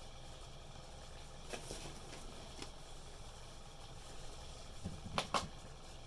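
Quiet steady background hum with a few faint clicks, then near the end a brief rustle and two sharp clicks close together, from a hand moving onto a computer mouse and clicking it.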